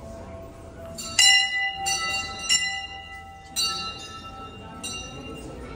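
Hindu temple bells struck one after another, about five strikes in all. Each strike rings on with several clear, steady tones.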